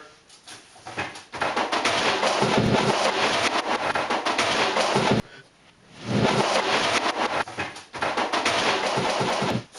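Fast, busy percussive music made of dense rapid drum-like strikes. It plays in two stretches with a short break about five seconds in.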